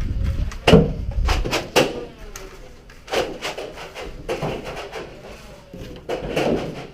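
A string of irregular sharp knocks and clacks, loudest and closest together in the first two seconds, then sparser.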